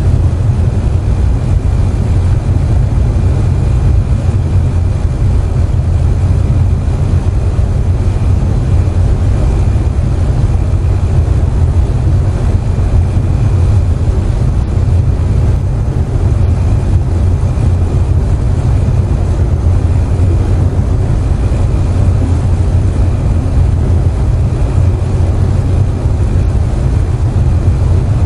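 Air conditioner running with a steady low hum, under an even hiss of rain.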